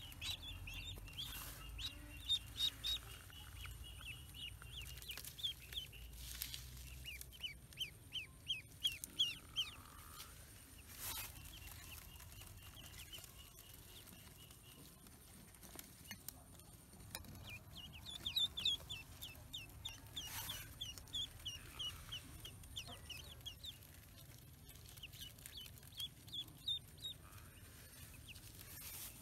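Duckling peeping: runs of short, high chirps in quick succession, in two long spells with a brief lull about halfway through.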